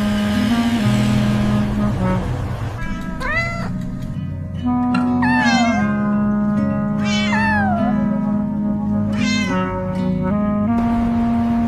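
A cat meowing four times over background music, the second and third meows long, rising then falling in pitch.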